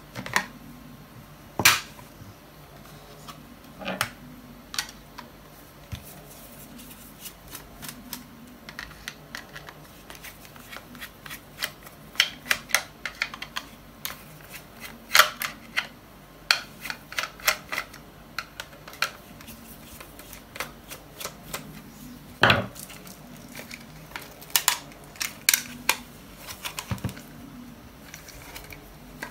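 Scattered clicks and light knocks of a cordless oral irrigator's plastic parts and small tools being handled on a work surface, as the unit is taken apart to replace its battery. The clicks come irregularly, bunched in quick runs through the middle, with a louder knock about two thirds of the way in.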